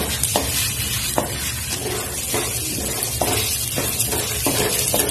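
A spatula stirring and scraping chana dal around a hot kadhai, with regular scrapes about every half second to second, over a steady sizzle of the dal roasting in mustard oil.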